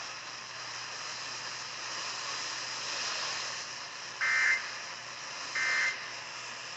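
Steady hiss of the radio feed, then two short bursts of EAS end-of-message data tones, about a second and a quarter apart, with a third starting right at the end. These warbling digital chirps close the relayed tornado watch alert.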